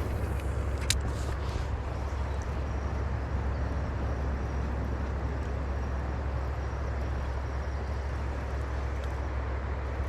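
Steady low rushing of river water, with a few sharp clicks about a second in.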